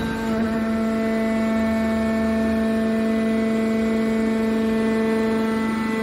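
Hydraulic power unit of an aluminium scrap baler running: the electric motor and hydraulic pump give a steady hum at one fixed pitch.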